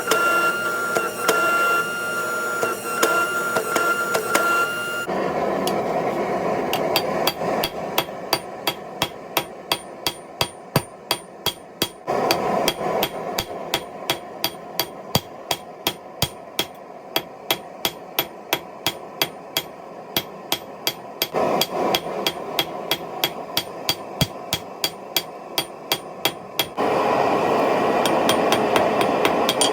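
Hammer forging steel on an anvil: a long run of sharp, even blows, about two a second, over a steady rushing noise. A steady high ringing tone comes first, for about five seconds, before the blows begin.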